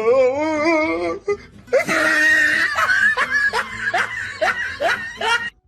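Person laughing: a drawn-out, wavering laugh, then after a short gap a run of breathy "ha" bursts about three a second that stops suddenly near the end.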